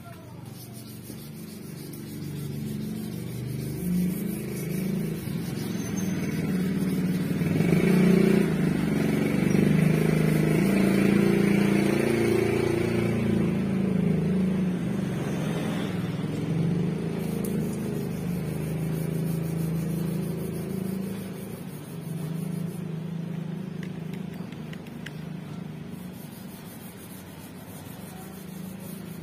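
A motor vehicle's engine running close by: a low, steady rumble that swells to its loudest around the middle and slowly fades off.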